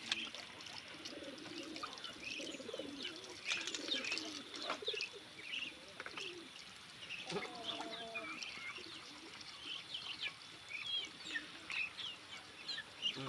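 Doves cooing over and over, with small birds chirping and twittering around them. A brief held tone sounds about seven seconds in.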